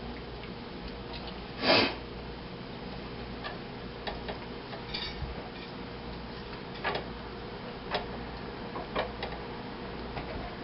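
Pieces of raw pork ribs being placed into a pot: one louder clunk about two seconds in, then scattered light taps and clicks, over a faint steady hum.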